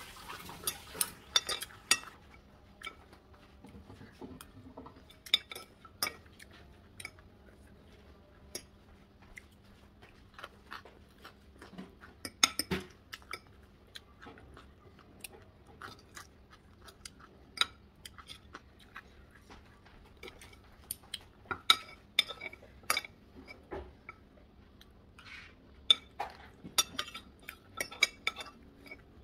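Metal spoon and fork clinking and scraping on a ceramic plate while eating: scattered sharp clicks, some in quick clusters, with quiet gaps between.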